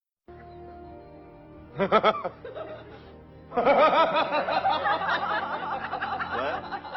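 Comic sound effect: after a brief silence, steady held tones, a short laugh-like burst about two seconds in, then a long run of rapid wobbling, snickering laugh-like sounds over the music.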